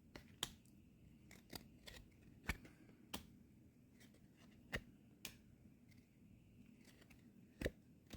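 Faint, scattered sharp clicks and snaps from handling a trading card pack and its cards, about a dozen small ticks with three louder ones spread through, over near silence.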